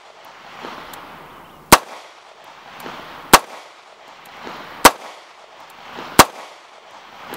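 Bersa TPR9C 9mm compact pistol fired four times, about a shot every one and a half seconds, each shot followed by a short echo.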